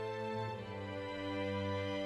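Background music of slow, sustained chords, changing to a new chord about half a second in.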